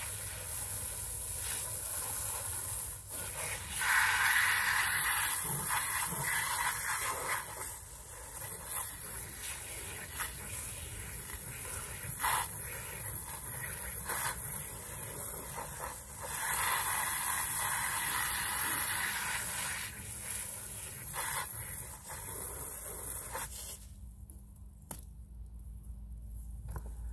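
Garden hose spray nozzle jetting water onto a removed fabric yurt window to wash it: a steady hiss, louder in two stretches. The spray stops about 24 seconds in.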